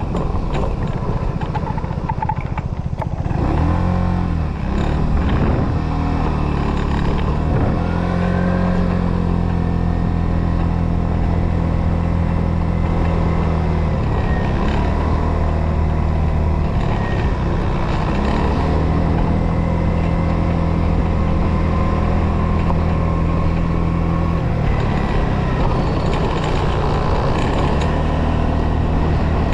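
Motorcycle engine running under the rider, climbing in pitch through a few quick gear changes in the first several seconds, then cruising at a steady pitch with a few drops and rises as speed changes.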